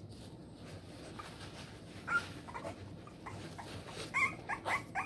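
Month-old Cavalier King Charles spaniel puppies whimpering: a string of short, high squeaks that start about two seconds in and come thick and fast near the end.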